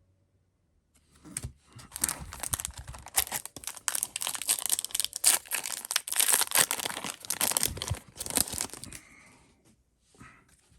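Trading-card pack wrapper being torn open and crinkled, a dense crackling run that lasts about eight seconds and then dies away.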